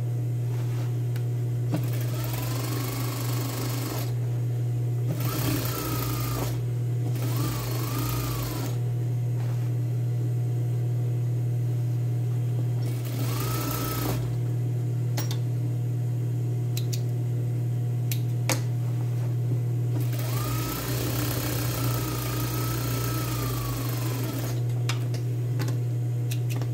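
Industrial single-needle lockstitch sewing machine topstitching a folded denim hem in about five short runs of one to four seconds, the motor's pitch rising and falling with each run, the longest run near the end. A steady low hum lies underneath, with a few sharp clicks between runs.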